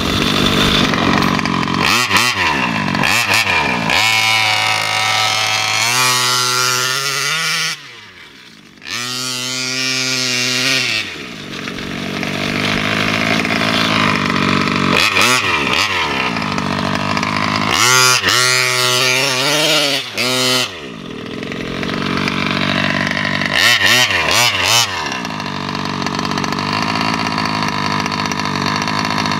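Two-stroke gas engine of a Kraken VEKTA.5 1/5-scale RC truck revving up and down over and over as it is driven hard. The pitch rises and falls with each burst of throttle, and it drops to a quieter low idle for a moment about eight seconds in.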